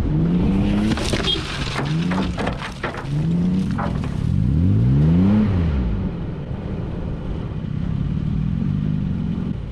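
Toyota Prado 4x4 engine accelerating hard on a dirt track, its pitch climbing and breaking off several times as it changes gear, then one steep rev up and down before it settles into a steady drone. A run of sharp cracks and scrapes comes between about one and four seconds in.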